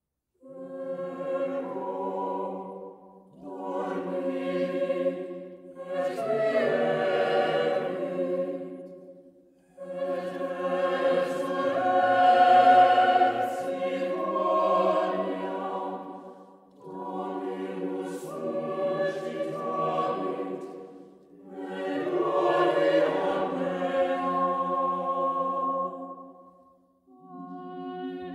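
Mixed choir singing a plainchant-style melody, its opening stated simply, in sustained phrases of a few seconds each with short breaks for breath between them.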